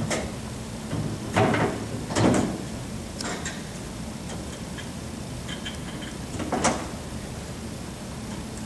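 Plastic LED display module being pushed back into an electronic message display's face and fastened: a few short sliding scrapes and knocks. The two loudest come about one and a half and two and a half seconds in, another about six and a half seconds in, with small clicks in between.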